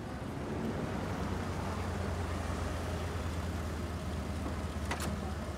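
Taxi's car engine idling steadily with a low hum, with a short sharp click about five seconds in.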